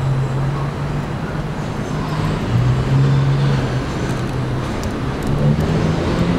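Kawasaki R211A subway train approaching on elevated track: a low hum that breaks off and resumes, over a steady rumble mixed with street traffic noise.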